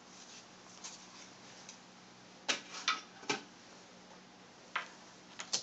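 A handful of sharp, irregular clicks and taps as a replacement laptop LCD panel is handled and set down into the laptop's open display lid, its metal-and-plastic frame knocking against the lid.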